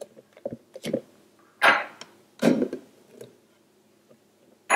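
Spatula knocking and scraping against the inside of a plastic blender jar while stirring thick cake batter by hand: a few light taps, then two louder scrapes about halfway through.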